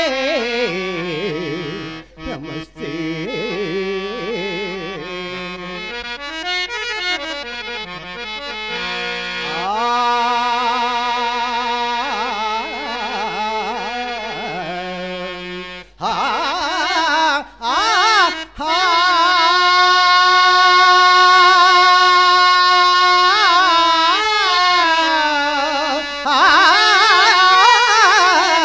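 Carnatic-style devotional singing: a wordless 'aa' alaap of long held notes with vibrato and ornamented slides, broken briefly a few times.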